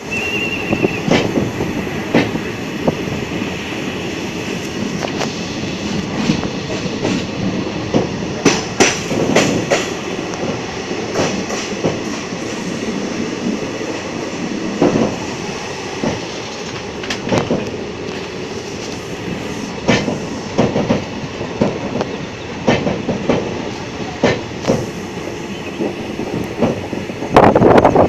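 Train running at speed, heard from on board: a steady rumble of wheels on rail with frequent, irregular clacks and knocks over the track. A brief high squeal sounds in the first second, and a louder rush comes near the end.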